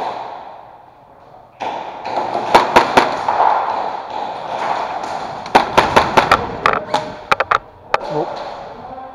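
Airsoft guns firing in short volleys, sharp cracks of shots and BBs striking: three about two and a half seconds in, a quick string of about seven some five and a half seconds in, then a few scattered ones.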